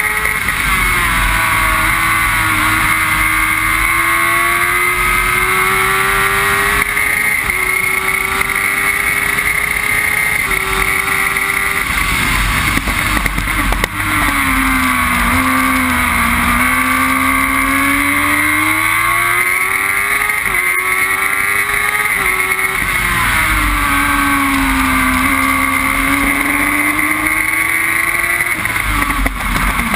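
Onboard sound of a Formula Jedi single-seater's motorcycle engine at racing speed: the engine note climbs and drops abruptly at several upshifts, and sinks twice as the car slows for corners before pulling up again. Wind and tyre noise runs under it throughout.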